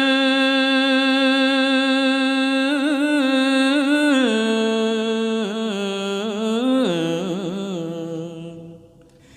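A Buddhist monk's solo voice chanting Khmer smot, holding one long note with wavering ornaments. The pitch steps down about four seconds in and again near seven seconds, and the voice fades out about nine seconds in.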